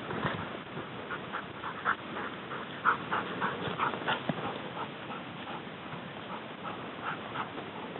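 A dog yelping: a string of short, irregular calls, busiest in the first half and sparser after about five seconds.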